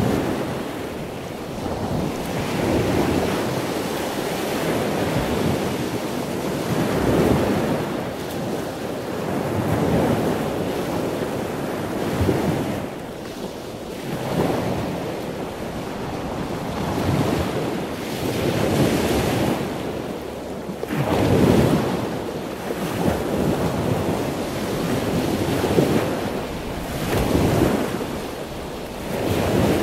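Ocean waves and wind: a noisy rush that swells and ebbs every two to three seconds, like surf breaking.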